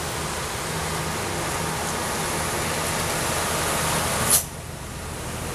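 Medium-duty truck's diesel engine running as it passes on a rain-wet road, its tyres hissing on the wet asphalt. About four seconds in there is a sharp click, and the sound drops to a quieter, duller traffic hum.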